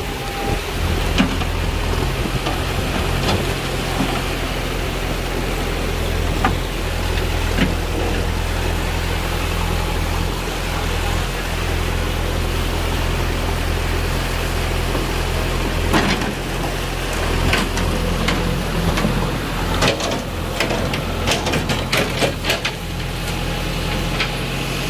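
JCB backhoe loader's diesel engine running steadily, a low even drone. Scattered clicks and knocks come in the second half.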